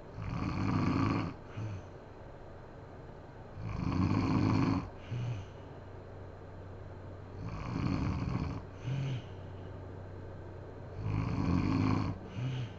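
A sleeping woman snoring: four loud snores about every three and a half to four seconds, each followed by a brief short sound.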